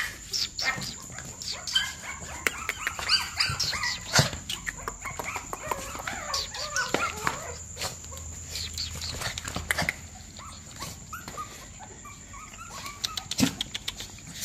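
A litter of young puppies whining and yelping in many short, high squeaks, with light clicks and taps among them.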